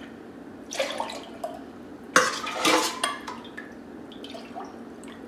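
A metal measuring cup scrapes and clinks against a stainless steel stockpot while syrup is scooped out and poured into a glass mason jar, with some trickling and dripping. The loudest clatter comes about two seconds in.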